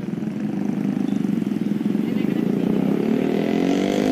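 Motorcycle engine running close by with a fast pulsing beat, its pitch climbing from about three seconds in as it revs up.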